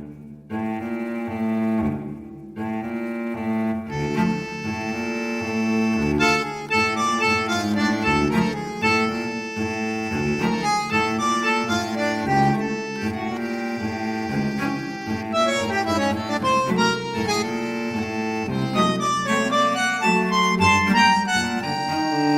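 Background music led by an accordion-like reed instrument, playing a busy melody over a steady bass drone.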